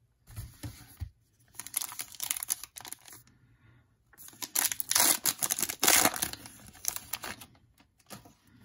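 Foil wrapper of a 2019 Panini Contenders football card pack crinkling and tearing open in several rustling bursts, loudest about five to six seconds in.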